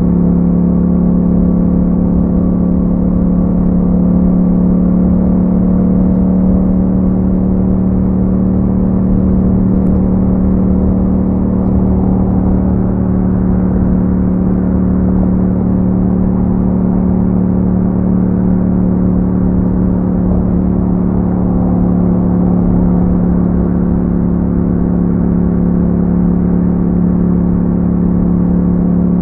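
Yamaha MT-07's 689 cc parallel-twin engine through an Akrapovic exhaust with a dB killer fitted, running at steady revs while riding, with no marked rise or fall in pitch.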